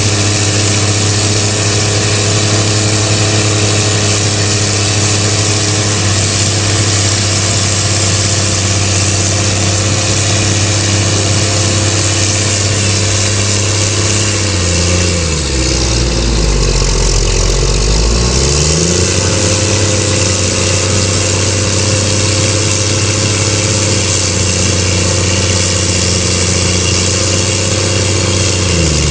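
Big farm tractors' diesel engines running loud and steady. About fifteen seconds in, the engine note sinks steeply, then climbs back by about nineteen seconds.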